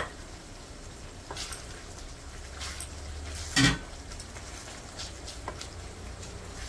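Wooden spatula stirring onion masala in an aluminium kadai, with light scraping clicks and one louder knock against the pan about halfway through, over a faint sizzle.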